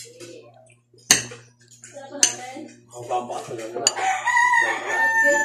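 A metal spoon and fork clink sharply against a plate twice. Near the end a rooster crows once.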